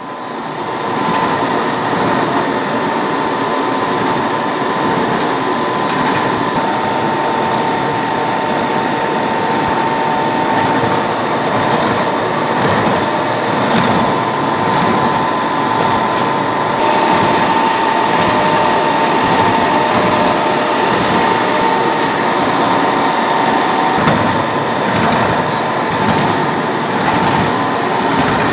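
Milling machine cutting the spiral teeth of a metal bevel gear, running continuously with a steady whine over a dense machining noise.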